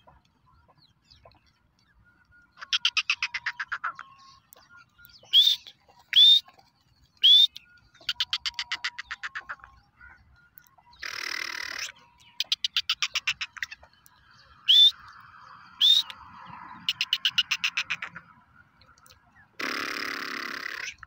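Black francolin calling: four harsh rattles of rapid clicks, each a second or more long, between five short, sharp rising notes. Two harsh, noisy bursts come in the middle and near the end.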